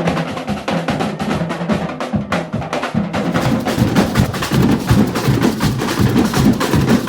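Carnival drum band rehearsing: several drums and sharp wood-block-like clicks beating a fast, busy rhythm, which grows fuller about three seconds in.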